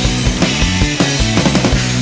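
Rock music with a steady beat, an instrumental passage between sung lines.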